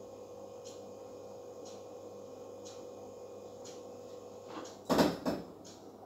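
Faint ticking about once a second over a steady hum, then about five seconds in a sharp knock followed by a second, smaller one.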